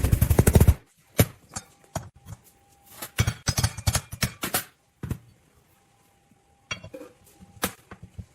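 Irregular metallic clinks and knocks of hand work on metal parts, opening with a quick rattle of clicks, with a faint steady tone underneath in the middle.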